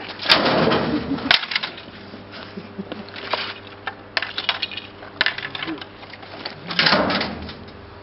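Knocks and clatter from the broken panels of a PC case being handled and dumped into a metal dumpster. There are two sharp clicks in the first second and a half, scattered knocks through the middle, and a louder rustling clatter near the end.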